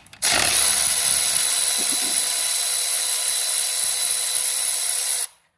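Power tool running steadily for about five seconds with a faint whine over a loud hiss, then stopping abruptly: backing out the oil pump's bolts.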